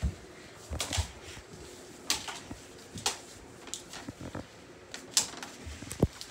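Irregular knocks, thumps and rustles of people scuffling and moving about on a wooden floor, with a sharp thump about six seconds in.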